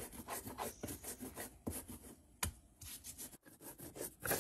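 Garlic, cumin, marjoram and salt being ground by hand with a pestle in a mortar: uneven rasping, scraping strokes, with one sharp knock about two and a half seconds in. A short lull follows, and harder strokes resume near the end.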